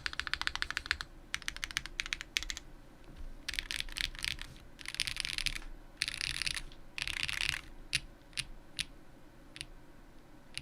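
Mr. Suit mechanical keyboard with lubed and filmed Zaku switches on a POM plate and GMK keycaps, being typed on. Quick runs of keystrokes come first, then several denser bursts of clacking, then a handful of single key presses spaced apart near the end.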